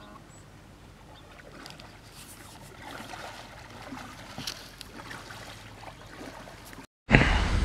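Kayak paddle strokes splashing and dripping in river water, faint at first and growing a little louder as the boat comes closer. Near the end the sound breaks off and a much louder close rustling takes over.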